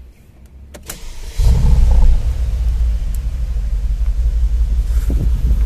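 A few faint clicks, then the Mercedes-Benz G500 4x4 Squared's twin-turbo V8 starts about a second and a half in. It flares briefly at start-up, then settles into a steady, deep idle rumble.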